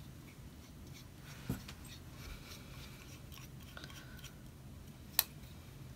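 Faint handling of small plastic blaster-kit parts being fitted together by hand, with a soft click about one and a half seconds in and a sharper click about five seconds in.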